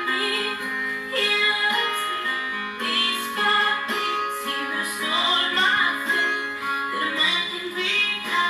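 Background music: a song with a woman singing over plucked guitar.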